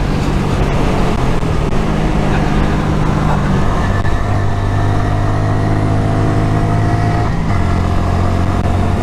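Honda MSX125SF's 125 cc single-cylinder four-stroke engine running at speed on the road, with wind rushing over the microphone. The engine note steps down twice, about four seconds in and again near the end.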